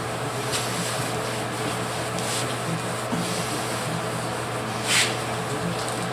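A cloth rubbed by hand over a pickup's freshly painted body panel: a few brief strokes, the loudest about five seconds in, over a steady low hum.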